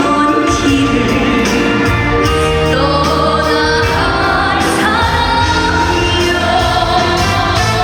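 A woman singing a Korean trot song live over backing music with a steady beat, her voice holding long, sliding notes.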